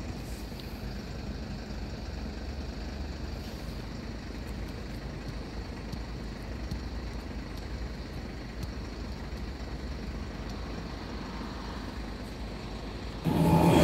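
Steady hum of road traffic. Near the end, a passing red regional passenger train cuts in suddenly and much louder.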